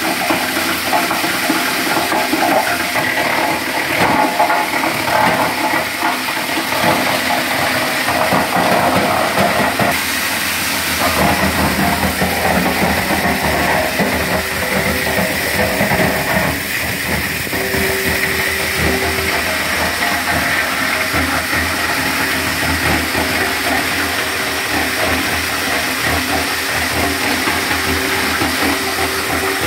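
Wood crusher machine (a wood chipper that grinds wood into sawdust) running, a loud steady rushing whir with a steady whine through it; the sound shifts slightly about ten seconds in.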